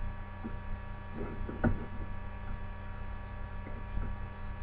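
Steady electrical mains hum picked up on the recording, with a few faint soft clicks.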